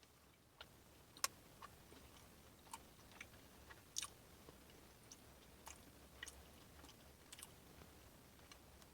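A person chewing a bite of crispy fried chicken sandwich close to the microphone: scattered soft crunches and wet mouth clicks, with two louder crunches about a second in and about four seconds in.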